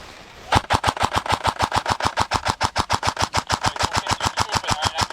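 Airsoft gun firing one long, continuous full-auto burst: a rapid even string of sharp shots, about nine a second, starting about half a second in.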